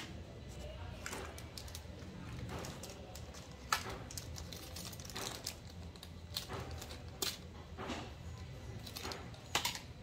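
Packaging being handled: a clear plastic accessory bag and cardboard box rustling and crinkling, with scattered sharp taps and clicks, the loudest about four seconds in, about seven seconds in and near the end.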